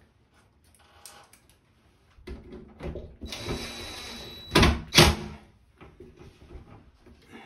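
DeWalt cordless drill/driver running for about two seconds, driving a screw into the fan's metal housing, with a thin steady whine. Right after it, two sharp knocks about half a second apart. Lighter clicks and handling taps before and after.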